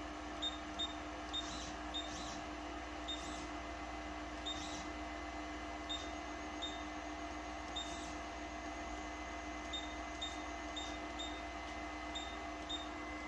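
Anycubic 3D printer humming steadily, with small irregular ticks about once or twice a second. This is the grinding noise the owner hears from its Z (height) axis, which he suspects is a failing Z-axis stepper motor or end stop, since the printer has trouble homing.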